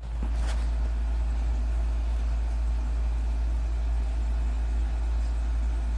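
Steady low electrical hum with a faint hiss over it from a weather radio receiver carrying no broadcast, unchanging throughout.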